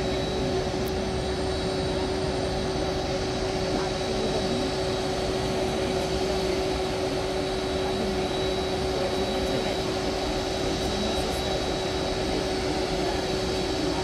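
Jet engines of a taxiing Boeing 767 airliner at low taxi power: a steady, even rush with a constant low hum and a thin high whine.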